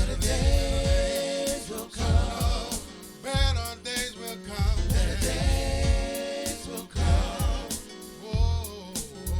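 Gospel song played by a band, with a steady beat of drums and bass under a wavering melody line.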